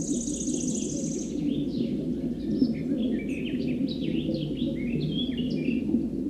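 Small birds chirping in short, scattered high notes over a steady low rumble of background noise, with a fast high trill during the first second.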